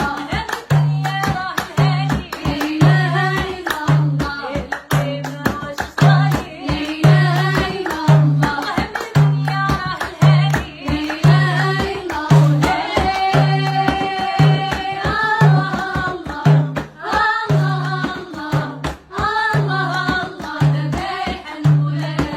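A song: a singing voice with a gliding melody over a steady drum beat.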